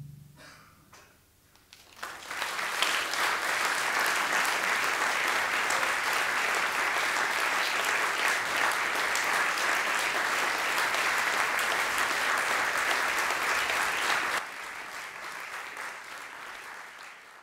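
Audience applauding: a few scattered claps at first, then full applause from about two seconds in. It drops suddenly to a quieter level near the end and fades out.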